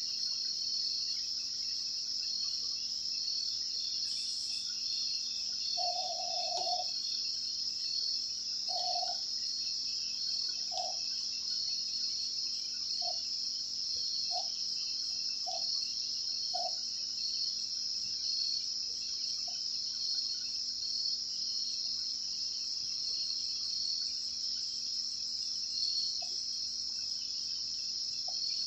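Night chorus of crickets: a steady high-pitched trilling that never lets up, with a few faint short low notes coming every second or two in the middle.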